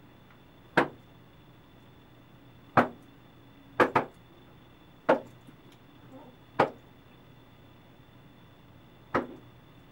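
Seven short, sharp slaps or knocks at irregular intervals, two of them close together about four seconds in, with only a faint steady hum between them.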